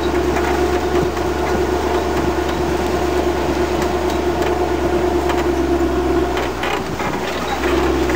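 Engine of an open safari vehicle running steadily as it drives, a constant drone with a low rumble that eases briefly about six and a half seconds in.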